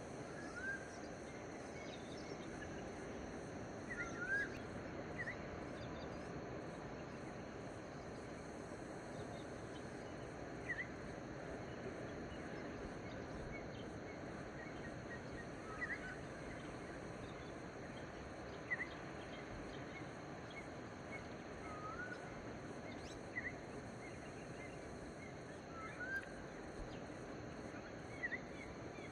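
Birds giving short, scattered chirps and swooping calls every few seconds over a steady background hiss of outdoor ambience.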